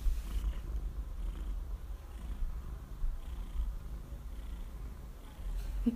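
Tortoiseshell cat purring close up while being stroked: a steady low rumble that pulses with its breathing, about once a second.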